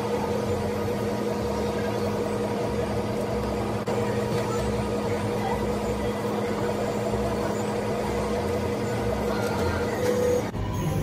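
Dog-tag engraving machine running while it engraves a name into a tag: a steady mechanical hum and whir with a pulsing low rumble.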